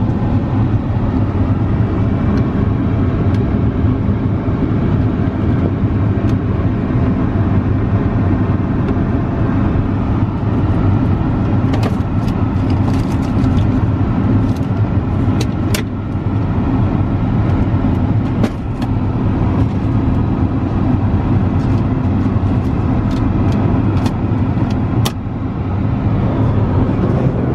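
Steady in-flight cabin drone of an Airbus A380, the rush of engines and airflow with a low hum underneath. Scattered sharp clicks come about halfway through and once more near the end.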